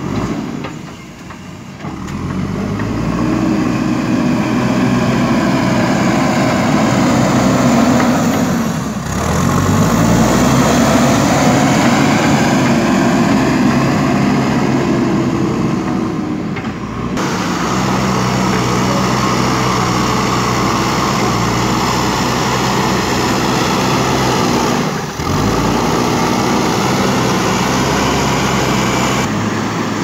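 JCB 3DX backhoe loader's diesel engine working, its pitch rising and falling with the throttle, with a few brief drops in the sound.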